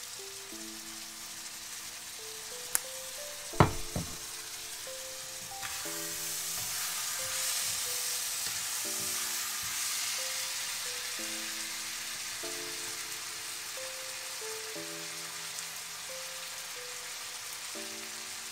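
Chicken and onions sizzling in a hot wok, the sizzle growing louder about six seconds in. Two sharp knocks come a few seconds in, the second the loudest. Background music with long held notes plays throughout.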